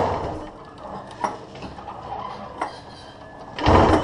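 1000cc Arctic Cat engine in a hill-climb bike revved in short throttle blips: one fading just after the start and another near the end, with a few sharp clicks between. It is running with a mercury-filled balancer fitted to its crankshaft to cure severe vibration.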